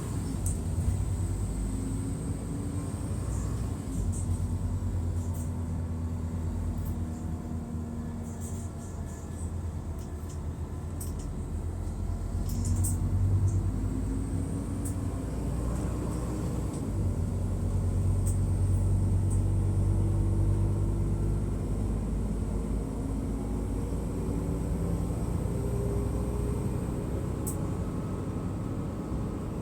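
Mercedes-Benz O500MDA bus's diesel engine running under load, its note climbing steadily. The note drops abruptly about four seconds in and again about seventeen seconds in, as the Voith automatic gearbox changes up.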